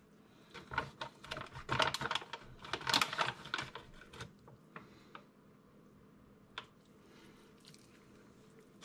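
Rustling, scraping and light clicking of hands and a spoon working dry coconut flour from its bag into a scored whole fish. The sounds are busiest in the first half, then thin out to a few faint ticks.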